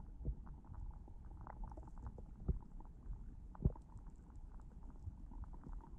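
Muffled underwater ambience heard through a submerged action camera: a low rumble of moving water with many small ticks and clicks, and a few louder knocks, the loudest about three and a half seconds in.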